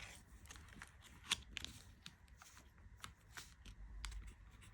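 Tarot cards being handled and flipped through: faint, quick papery slides and clicks of card stock at an uneven pace.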